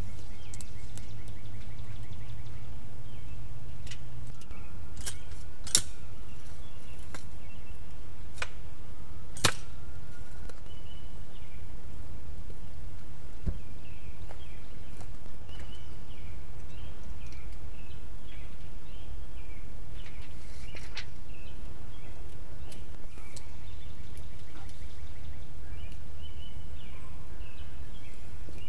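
Outdoor background with birds chirping, mostly in the second half, and a few sharp knocks as a wooden post and tape measure are handled. The loudest knock comes near ten seconds in.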